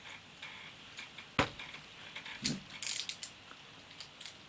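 Paxette 35mm rangefinder's leaf shutter, set to 1/100 s, firing with one sharp click about a second and a half in, followed by a cluster of smaller mechanical clicks from the camera being worked. The shutter is firing properly again after having been stuck open.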